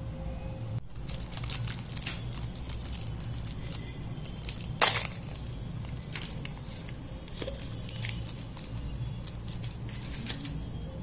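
Foil and plastic wrapper crinkling and crackling as a Cadbury Dairy Milk Silk Bubbly bar is handled. One sharp snap a little under five seconds in as the aerated chocolate bar is broken.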